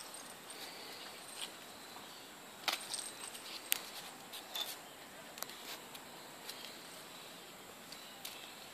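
A chihuahua and a silky terrier–chihuahua cross playing and chasing on grass: scattered light clicks and jingles from their movement, over a faint steady hiss.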